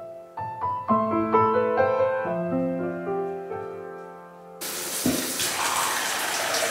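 Gentle piano background music. About four and a half seconds in, a bath mixer tap is turned on and water pours steadily into the bathtub, a loud even rush over the music.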